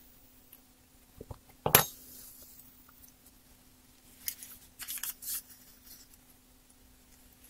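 A sharp clack on the workbench about two seconds in, after a couple of lighter knocks. Then a few short, crisp rustles as the tissue-paper pages of a booklet of metal leaf are handled and opened. A faint steady hum runs underneath.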